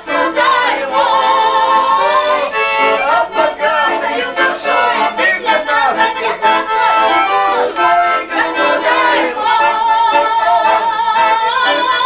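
Accordion music playing a tune continuously, with singing.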